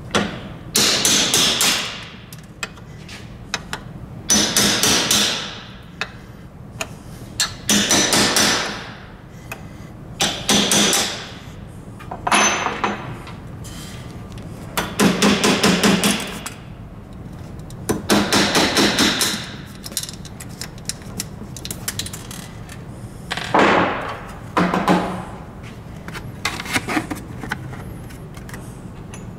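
Power screwdriver driving screws in about nine short bursts, each a second or so of rapid clattering.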